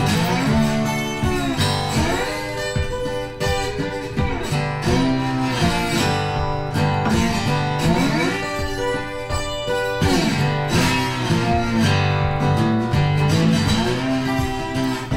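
Background music: acoustic guitar playing in a country or bluegrass style, with sliding notes over a steady bass line.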